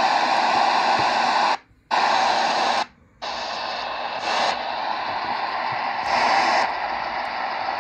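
Degen DE1103 shortwave receiver in AM mode giving steady static hiss with no station, cutting out twice for a moment about one and a half and three seconds in as a new frequency is keyed in. After the cut-outs the hiss comes back a little quieter, swelling briefly twice.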